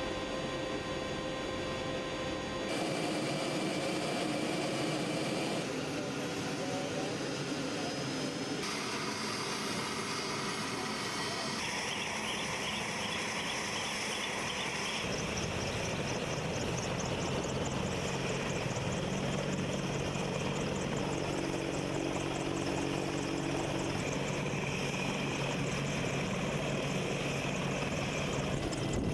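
AH-64 Apache attack helicopter running on the ground, its turbine engines and turning rotor making a steady noise that changes character at each cut in the footage.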